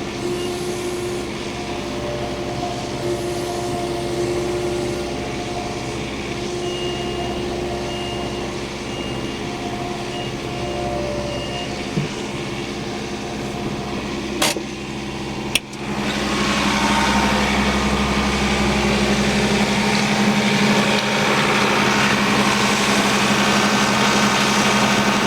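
An engine running steadily, with a high beep repeating on and off during the first half. A sharp click comes about two-thirds of the way through, and then the engine sound turns abruptly louder and rougher.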